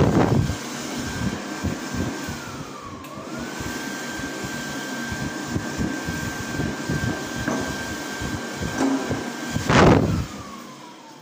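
Older ATC hand dryer running: rushing air under a steady high motor whine. About three seconds in, the motor winds down briefly and picks back up, and it winds down again at the end. Two loud bumps come at the start and about ten seconds in, the second the loudest.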